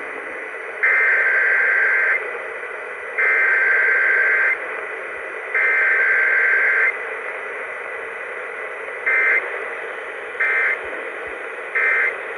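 Emergency Alert System SAME digital data bursts received over the radio: a buzzing tone burst repeated three times, each over a second long, then three short bursts, the pattern of the header followed by the end-of-message code, over steady radio hiss.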